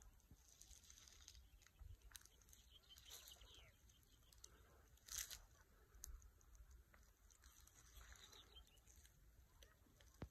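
Near silence, broken by scattered faint crackles and soft rustles.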